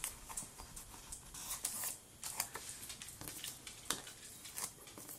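Paper sticky notes being peeled off a planner page and handled, with fingers brushing the paper: a scatter of short, faint rustles.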